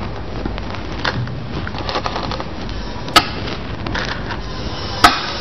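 Go stones being set down on a board: two sharp clacks about two seconds apart, with a few fainter taps before them, over a steady background hiss.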